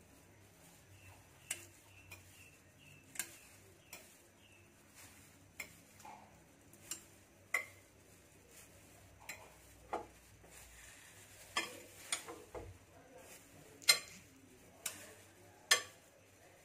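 Metal kitchen tongs clicking and clinking against a plate and a stainless steel pot as stuffed bitter melons are lifted into the water: sharp, irregular clicks about once a second, the loudest near the end.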